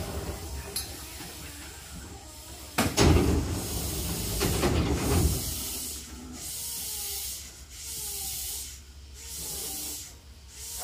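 Commuter train's bi-parting passenger doors opening at a station stop. About three seconds in there is a sudden clunk and hiss as the door panels slide apart, lasting about two and a half seconds. After that a quieter hiss comes and goes.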